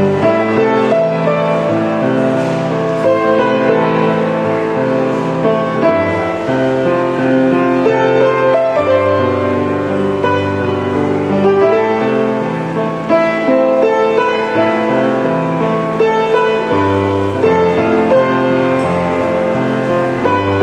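Instrumental music, led by piano, playing slow sustained chords.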